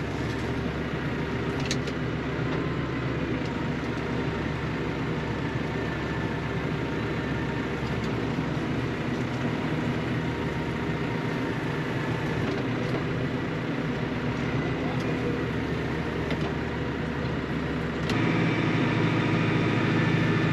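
A motor vehicle's engine running steadily. About 18 seconds in the sound changes abruptly and becomes louder.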